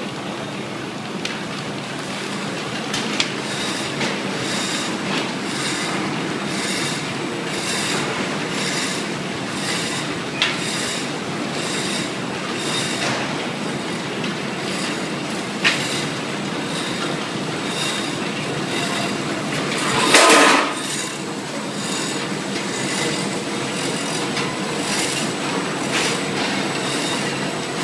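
Automatic milk-candy feeding and packing machine running: a steady mechanical clatter that repeats at an even rhythm, with a few sharp clicks and one louder burst of noise about twenty seconds in.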